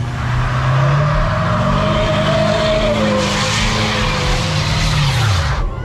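Pickup truck doing a burnout: the engine revs up and holds high while the rear tyres spin on the pavement with a loud, harsh skidding hiss. The hiss grows stronger about three seconds in. The revs then fall and the sound cuts off suddenly near the end.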